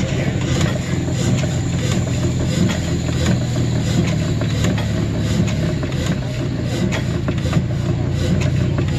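Antique horizontal stationary gas engine running, a steady low drone with faint clicking over it.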